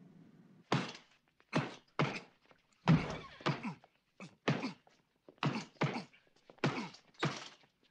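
Repeated punches landing: about a dozen dull thuds at an irregular pace, some in quick pairs, typical of someone working over a punching bag.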